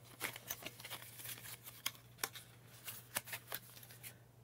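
Light clicks and rustles of a plastic foundation tube being handled and slipped back into its thin cardboard box, scattered irregularly, over a faint steady low hum.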